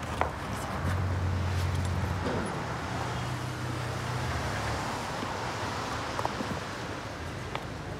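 Road traffic: a steady roar of passing vehicles, with a low engine hum swelling about a second in and fading out before the middle, and a few light taps.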